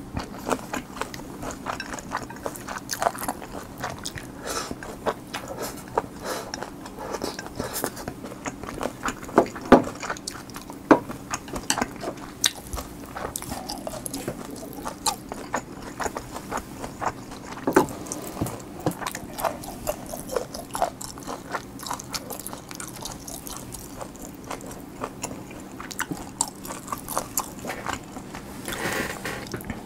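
Close-miked mouth sounds of a person chewing food: many small, irregular clicks and smacks.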